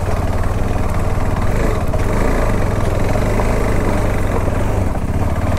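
KTM Adventure X motorcycle's single-cylinder engine running steadily under load, climbing an off-road slope with a rider and pillion aboard.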